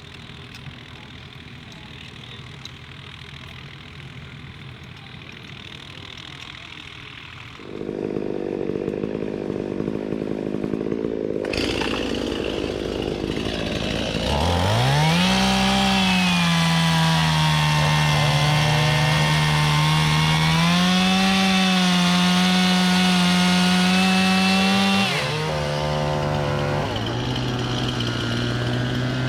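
A small, high-revving engine speeds up sharply about halfway through and holds at high speed with its pitch wavering slightly, then drops to a lower, steady speed near the end. Quieter background noise comes before it, changing abruptly twice.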